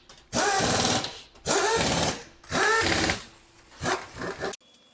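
Aerosol brake cleaner spraying in three bursts of about a second each, hissing with a sputtering, wavering pitch as the can runs low, then a few faint clicks near the end.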